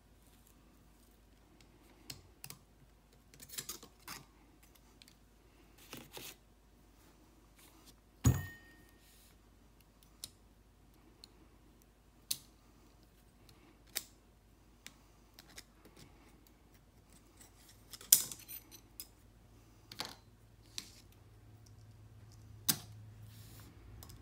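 Snap ring pliers and steel parts on a Richmond 6-speed transmission shaft: scattered metallic clicks and taps as a snap ring is worked loose, with a sharp clank that rings briefly about eight seconds in and another loud clank a little past halfway.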